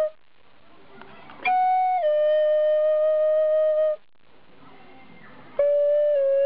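Solo flute playing slow, long held notes with pauses of over a second between them. A note ends at the very start, a second runs from about one and a half seconds in to four seconds in, and a third begins near the end; each steps down slightly in pitch partway through.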